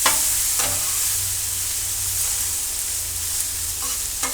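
Chicken chunks sizzling steadily on a hot Blackstone flat-top griddle, with a few sharp clicks, likely a metal spatula against the steel top, near the start and at the end.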